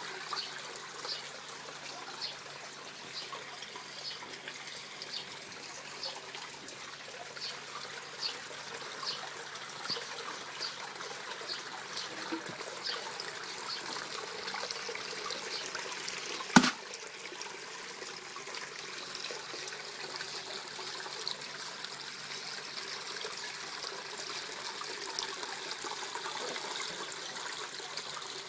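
Small waterfall trickling and splashing steadily, with a short high chirp repeating about once a second through the first half and one sharp click a little past halfway.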